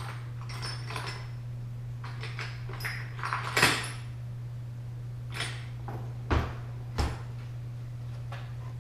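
Steel parts and hand tools clinking and being set down on a workbench: scattered light clinks, a louder clatter about three and a half seconds in, and two sharper knocks a little past the middle. A steady low hum runs underneath.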